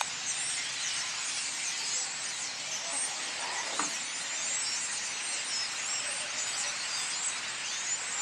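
A large flock of hundreds of black birds calling all at once: a steady, dense chorus of many overlapping short, high calls.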